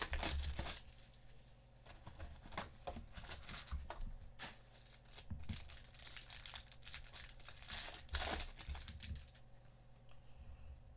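Plastic wrapping on a box of trading cards and its pack being torn open and crinkled by hand, in irregular bursts. It is loudest at the very start and again about eight seconds in, then dies down.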